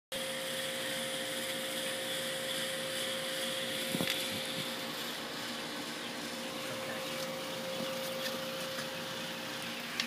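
Steady whir and hiss of a running machine with a constant mid-pitched hum, and a single click about four seconds in.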